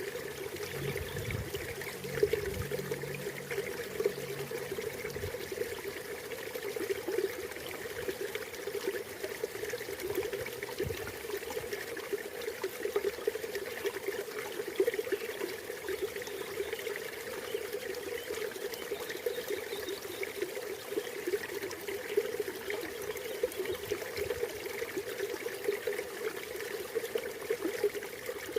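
River water flowing and trickling steadily, a continuous babble of small splashes.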